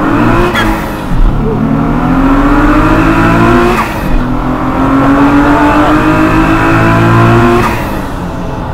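Nissan Z (RZ34) twin-turbo 3.0 V6 pulling hard at full throttle: the engine note climbs in three runs with quick upshifts about 1 s and 4 s in, then the driver lifts off near the end.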